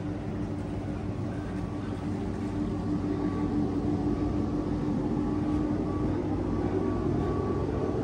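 Steady mechanical hum of machinery running aboard a motor yacht, with a held mid-pitched drone that grows a little louder about three seconds in.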